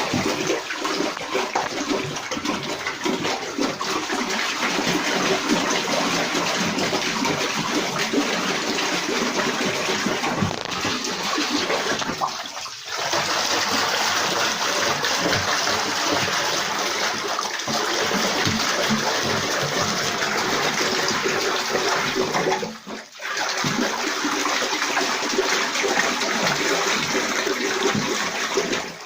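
Water running steadily into a bathtub, a dense rushing noise that drops out briefly twice.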